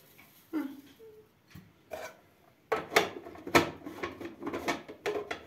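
Food processor's plastic lid and feed-tube pusher being fitted onto the bowl: a run of sharp, irregular plastic clicks and knocks starting about halfway through, after a quiet stretch. The motor is not running.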